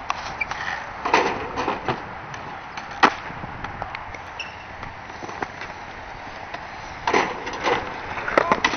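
Skateboard wheels rolling on asphalt, with several sharp clacks and knocks as the board strikes the pavement and a wooden box, the sharpest about three seconds in and a cluster near the end.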